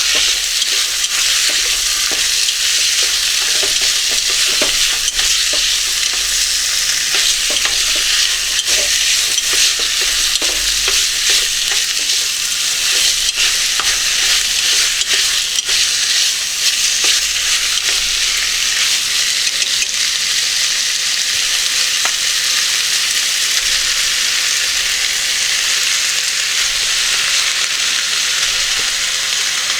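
Food sizzling in a frying pan while being stirred, a steady hiss with scattered light clicks from the utensil that thin out in the last third.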